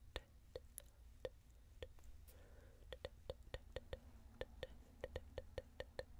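Rapid tongue clicks close to the microphone, about four a second in a fairly even rhythm, each with the same hollow pop.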